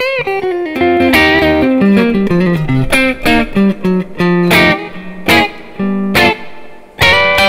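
Tokai AST-52 Goldstar Sound Stratocaster-style electric guitar on its middle single-coil pickup, played through a Yamaha THR10 amp on a light crunch tone. A bent note opens a quick descending single-note run, followed by a series of short, choppy chord stabs.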